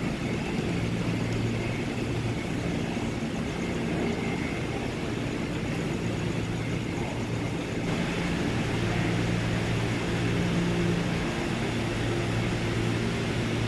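A steady low mechanical hum with droning tones, a little stronger in the second half, and no distinct individual events.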